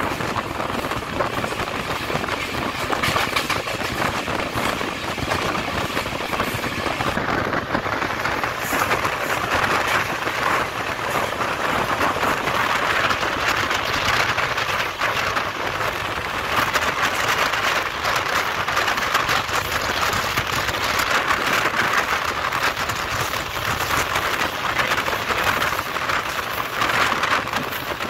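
Passenger train running at speed, heard from its open door: a steady rushing noise of wheels on the rails and passing air.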